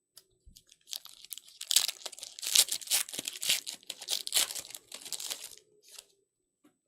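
A sealed Panini Origins basketball card pack being torn open, its wrapper crinkling and crackling for about four and a half seconds, with one last short crinkle near the end.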